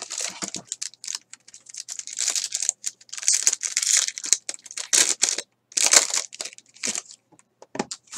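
A cardboard trading-card box being opened, then the plastic wrapper of a 2016 Strata baseball card pack crinkling and being torn open, in several separate bursts of rustling.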